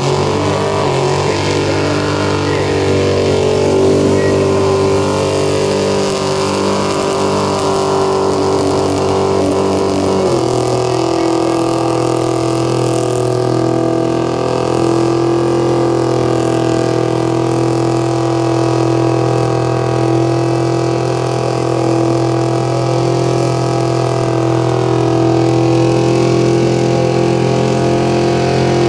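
Ford XD Falcon's 351 V8 held at high, steady revs during a burnout, the rear tyres spinning and smoking; the engine note shifts once about ten seconds in, then holds steady again.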